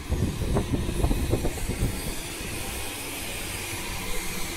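Northern Class 150 diesel multiple unit pulling away, a low rumble with rapid clattering for the first second and a half, then fading under a steady hiss.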